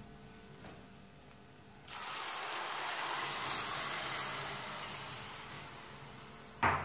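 Milk poured into a hot steel kadai of ghee-roasted chopped dry fruits. It hisses and sizzles suddenly as it hits the hot ghee, starting about two seconds in, then slowly dies down. A short loud sound comes near the end.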